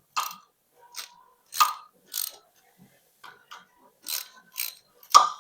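Hand socket ratchet wrench clicking in short, irregular strokes, about nine in all, while working the bolts on a tractor transmission.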